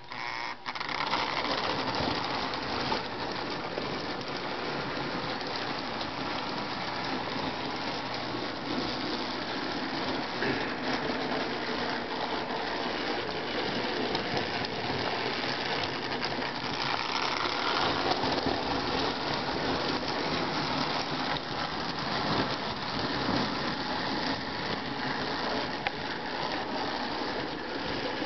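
Lionel 221 O-gauge toy steam locomotive starting up about half a second in and running steadily around the layout: its electric motor and gears whirring and the train's wheels rattling along three-rail tubular track.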